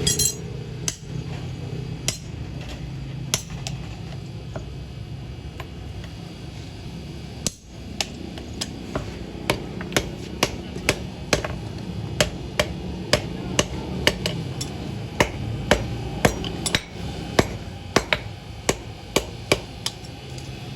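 Hammer blows on steel being forged into an axe head from a truck leaf spring: a few separate strikes at first, then steady hammering at about two strikes a second from about eight seconds in, over a steady low hum.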